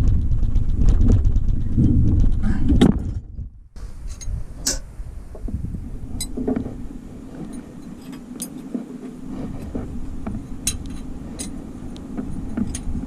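A loud low rumble, then an abrupt break about three and a half seconds in. After it come scattered light metallic clicks and clinks, typical of tools and engine parts being handled during a teardown, over a steady low hum.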